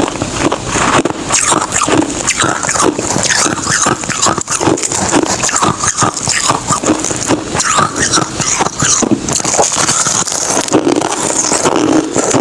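Ice being bitten and chewed close to the microphone: a dense, continuous run of crisp crunches and crackles.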